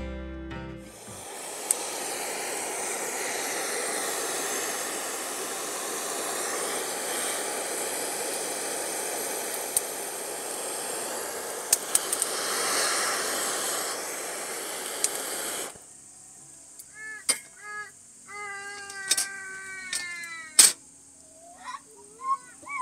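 A steady hiss of noise for about fifteen seconds, then an abrupt change to a thin, steady high-pitched insect trill with a string of short animal calls that fall in pitch.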